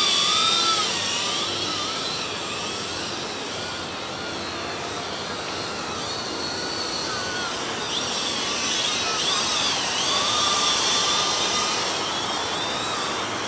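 XK X300 quadcopter's motors and propellers whining in flight, the pitch wavering up and down as the throttle changes, in its fastest speed mode. It is louder near the start, fades somewhat, and grows louder again about ten seconds in as the drone comes closer.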